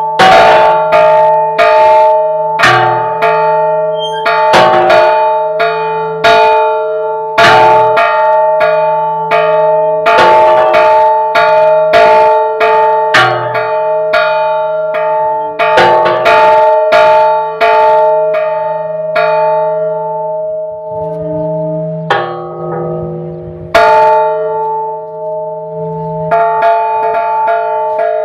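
Church tower bells rung by hand in a repique, the clappers struck against the bells, not swung. The strokes come unevenly, about one or two a second, each bell's tone ringing on between strokes. The strokes thin out briefly about three-quarters of the way through before a loud stroke.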